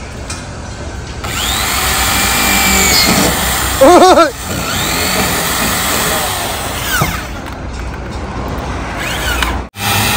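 Corded electric drill boring holes into a decorative panel on a truck's front, its motor running with a whine that rises and falls. About four seconds in, a short, loud warbling tone sounds over it.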